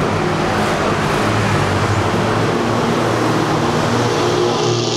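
Steady road-traffic noise, engines running at a steady pitch.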